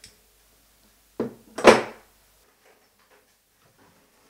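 Two clunks a little over a second in, the second louder and longer, as a single panel radiator and its valve fittings are handled while it is disconnected for lifting off the wall.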